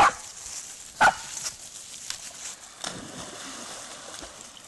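A dog barking twice, about a second apart, then about three seconds in a splash as a dog leaps into the river after a thrown stick, followed by sloshing water as it swims.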